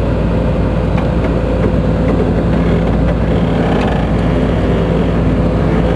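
Case CX210B hydraulic excavator's diesel engine running steadily, a constant hum with a low rumble, its main hydraulic pump freshly overhauled.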